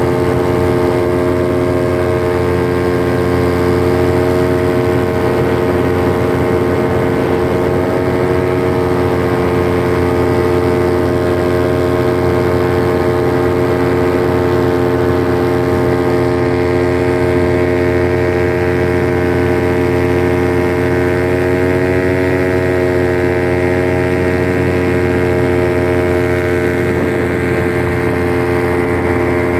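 Paramotor engine and propeller running steadily in flight, a loud droning tone whose pitch lifts slightly a couple of times.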